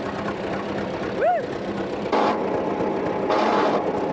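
Fordson tractor's four-cylinder engine running after being crank-started, with a couple of short louder surges in the second half.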